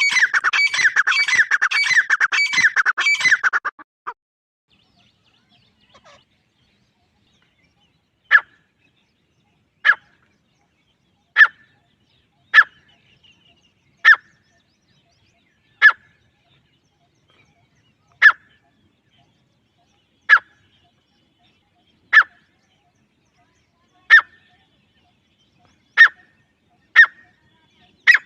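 Francolin (teetar) calls used as a hunting lure: a rapid run of repeated calls for about the first four seconds, then after a pause single short, sharp notes about every one and a half to two seconds.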